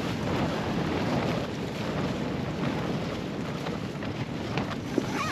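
Strong, gusty wind rushing over the microphone, with a few short knocks and one sharp knock near the end.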